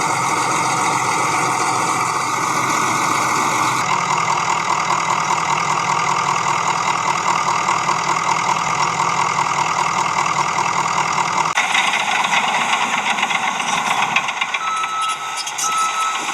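Heavy vehicle engine running, its sound changing abruptly about four and twelve seconds in. Near the end a repeated short beep begins.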